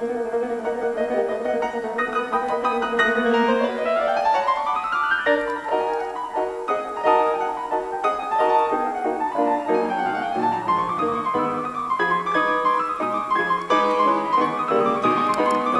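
Background instrumental music on piano, with held notes giving way to quick runs of notes climbing and falling.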